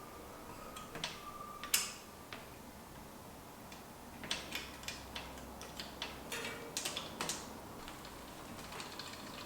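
Scattered light clicks and taps of hands working on bicycle parts and tools: one sharper click about two seconds in, then a run of quick clicks and knocks in the middle.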